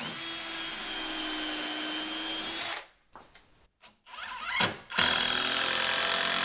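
Power drill driving a screw through a door jamb into the wall framing, in two runs: a steady run of nearly three seconds, a pause, then a second, shorter run near the end.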